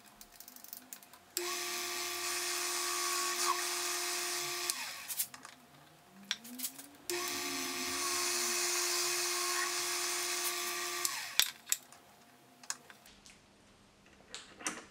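Small benchtop metal lathe running twice, each time for about three to four seconds, a steady motor whine with a bright hiss, while turning an aluminium bar; the whine rises as it starts and falls away as it stops. Clicks and knocks of handling between the runs and near the end.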